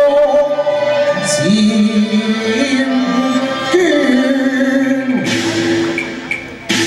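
A man singing a Cantonese opera song into a microphone, holding long notes that slide between pitches, over an accompanying ensemble with bowed strings. A sharp new attack comes near the end.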